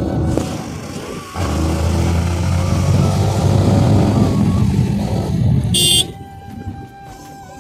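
Motorcycle running along a road, its engine mixed with wind noise on the microphone, with a short horn toot about six seconds in, after which the riding noise drops away.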